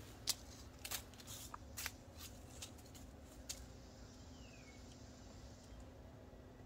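Guy line cord being wrapped and knotted around a sapling by hand: faint rustling with a string of light clicks over the first few seconds, then it goes quiet to a faint steady background.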